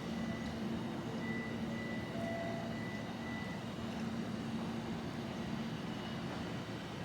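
Steady vehicle running noise with a faint hum and no distinct events.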